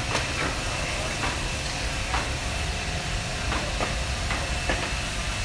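Charcoal rotisserie grill with an electric fan running beside it: a steady whirring hiss and low rumble with a faint high whine, broken by scattered short clicks and crackles.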